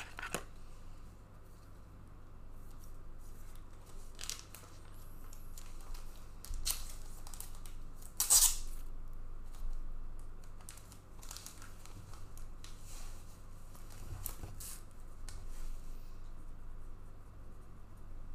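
Trading card packs and cards being handled: scattered short rips and rustles of wrappers and card stock, the loudest about eight seconds in.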